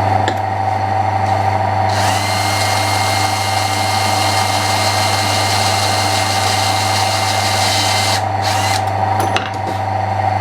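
Power drill boring through textolite with a single bit. A harsh cutting noise with a steady whine starts about two seconds in and stops about six seconds later, over a steady motor hum, followed by a few short knocks.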